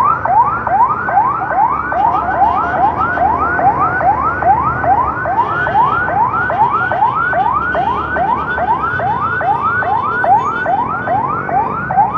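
Electronic emergency siren in fast yelp mode: quick rising whoops, about three a second, over a low rumble of engine and road noise.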